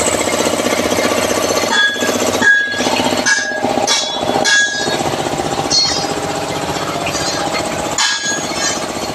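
A power tool running continuously with a fast, even hammering pulse.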